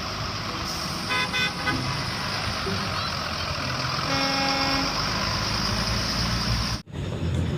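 Vehicle horn tooting over a steady engine and traffic noise: a few quick beeps about a second in, then one longer toot about four seconds in. The noise drops out for an instant near the end.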